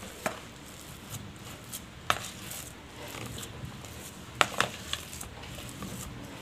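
A spoon stirring and mashing thick semolina (rava) batter in a plastic bowl, with a few sharp clicks where it knocks against the bowl.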